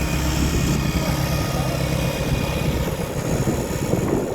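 Farmall 140 tractor's freshly rebuilt four-cylinder gasoline engine running, with a rapid, even chugging.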